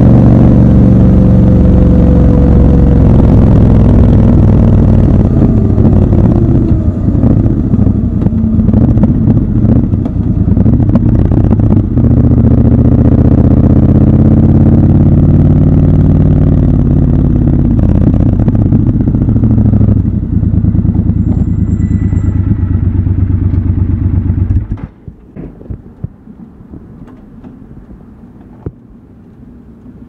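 Triumph Scrambler 1200 XC's 1200 cc parallel-twin engine running as the motorcycle slows, its note falling over the first few seconds. The engine is switched off about 25 seconds in, leaving a few light clicks.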